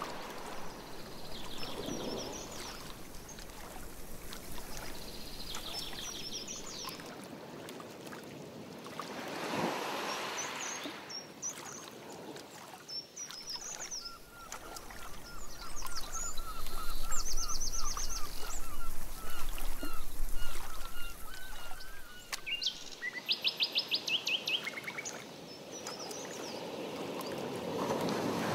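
Canoe paddle strokes swishing through lake water, a few seconds apart, with songbirds chirping from the shore. In the middle, a bird repeats a short note over and over for several seconds.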